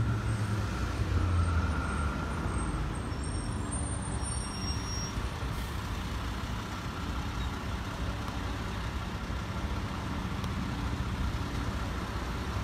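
Road traffic: a motor vehicle's engine rumbling loudest in the first couple of seconds, then a steady low traffic rumble.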